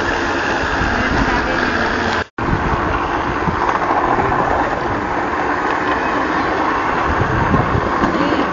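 Steel wheels of a pushed rail trolley rolling along the railway track: a steady, noisy rumble and rattle, broken by a brief moment of silence a little after two seconds in.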